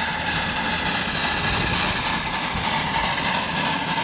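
Miniature coal-fired Clishay beam-engine steam locomotive running past under load with its ride cars: a steady hiss of steam and running noise with a few thin steady tones above it.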